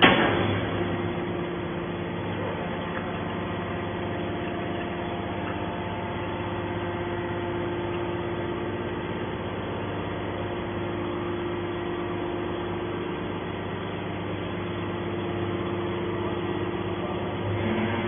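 Hydraulic scrap metal baler running, its pump and motor giving a steady hum while the ejection cylinder pushes a compressed bale of extrusion scrap out of the chamber. A sharp knock right at the start.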